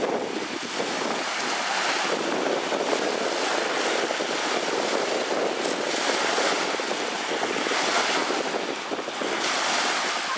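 Small waves washing onto a lakeshore, with wind buffeting the microphone: a steady rushing noise.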